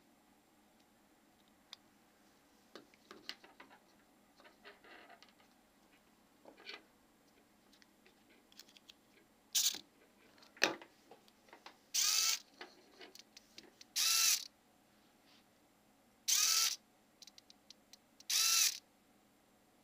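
Hobby microservo swinging a pair of animatronic eyes from side to side, whining in short bursts about half a second long, four times about two seconds apart in the second half. Before that come light handling clicks and one sharp click as the board is hooked up.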